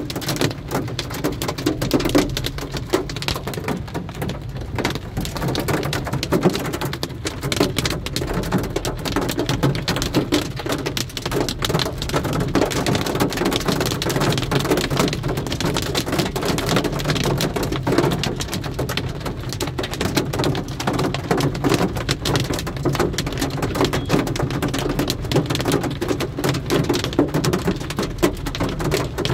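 Heavy rain mixed with hail drumming steadily on a car's roof and windshield, heard from inside the car: a dense, unbroken patter of many small impacts.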